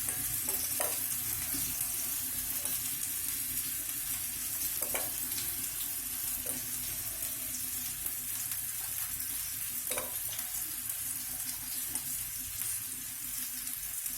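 Marinated chicken on a stick frying in mustard oil on a hot tawa: a steady sizzle, with a few faint light knocks.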